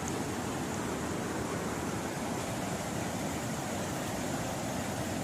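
Steady rushing noise that holds even throughout, with no distinct events.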